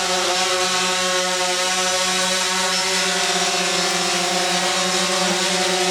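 DJI Phantom 4 quadcopter's motors and propellers running at a steady speed, a constant buzzing drone with an even pitch.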